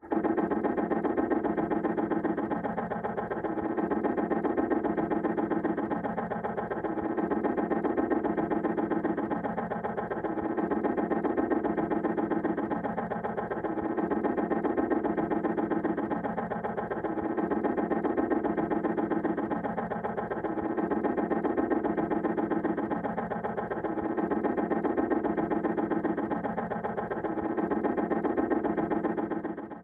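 Rapid, steady putt-putt chatter, a sound effect like an old outboard boat motor or a machine gun. It swells and dips in loudness about every three and a half seconds and cuts off at the end.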